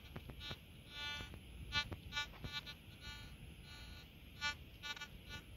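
Minelab Simplex metal detector giving repeated short, buzzy target beeps at uneven intervals as its coil passes over the dug hole, signalling metal still in the soil. A few soft scrapes of hands digging come near the start.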